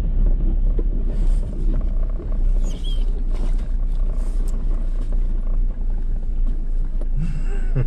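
Low, steady engine and road rumble inside a slowly moving car, with a few short sounds over it, one about three seconds in and one near the end.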